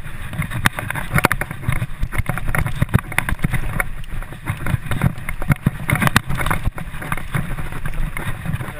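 Mountain bike riding fast over a dirt forest singletrack: a steady rush of wind and tyre noise with frequent irregular rattles and knocks as the bike bumps over the trail.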